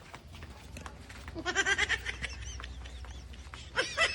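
A goat bleating twice in quavering calls, once about a second and a half in and again near the end.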